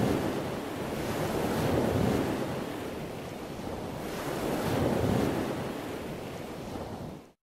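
Ocean waves washing with wind over open water, swelling and easing every two to three seconds, then cutting off abruptly near the end.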